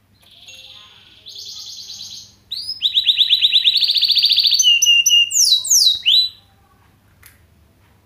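Mozken, a Mozambique (yellow-fronted) canary × domestic canary hybrid, singing one canary-style song phrase of about six seconds. It opens with a buzzy note, runs into a long, fast, rattling trill that is the loudest part, and ends with a few quick descending whistles about six seconds in.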